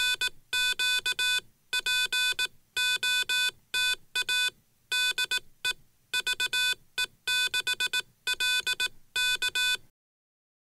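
Morse code (CW) tone: a steady-pitched beep keyed on and off in short and long elements, grouped with gaps between characters. It stops shortly before the end.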